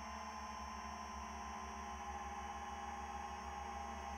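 FPV quadcopter's brushless motors (iFlight XING 2814) and 10-inch three-blade props spinning at low throttle, a steady electric whine made of several held tones.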